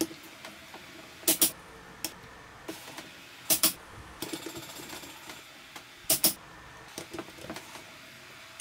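Proxxon click-type torque wrench breaking over on the brake caliper bolts, a sharp double click about every two and a half seconds as each bolt reaches the set 71 N·m, with faint ratchet ticks between.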